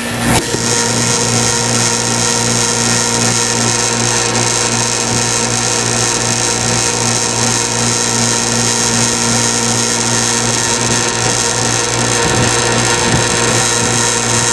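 A small motor starts abruptly and runs steadily with a loud, even hum-and-whir.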